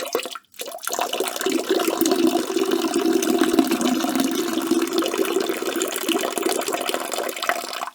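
A man urinating: a short spurt, a brief break, then a steady stream lasting about seven seconds that cuts off abruptly near the end.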